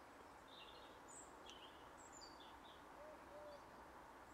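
Quiet outdoor background hiss with faint, scattered small-bird chirps, and two short, soft, low notes about three seconds in.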